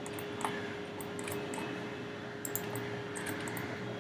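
Quiet background: a steady faint hum over a low hiss, with a few faint short clicks.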